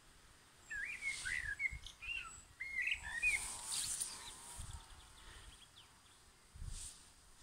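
A songbird singing a short phrase of quick warbling notes that rise and fall, starting about a second in and lasting about two seconds, over faint rustling and a few soft knocks.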